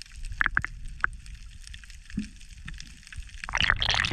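Muffled underwater sound of sea water over a reef: a low rumble with a few sharp clicks and pops, then a burst of splashing and bubbling near the end as the microphone breaks the surface.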